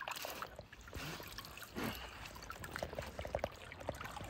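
Water pouring and trickling as a large mirror carp is lifted out of the lake, with drops plopping back into the water.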